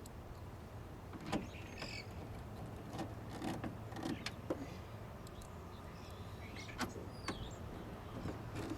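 Hand-tool work on a car door, likely a small socket driving the speaker screws: scattered sharp clicks and light knocks with a few brief squeaks, over a steady low hum.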